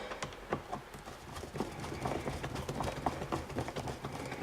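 Irregular light clicks and taps, several a second, of a long screwdriver and plastic parts being handled while working on a fridge-freezer fan's wiring.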